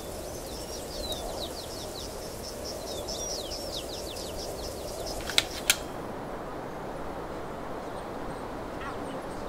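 Outdoor ambience with a steady background hiss, over which a small bird gives runs of quick chirps, each falling in pitch, through the first four seconds. Two sharp clicks come close together about five and a half seconds in.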